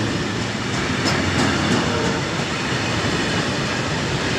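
Freight train of covered hopper wagons rolling past close by: a steady rumble and rush of wheels on rail, with a few faint clicks.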